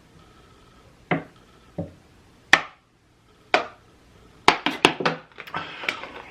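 A person eating close to the microphone: separate wet mouth smacks and clicks of chewing, coming faster in a quick cluster past the midpoint.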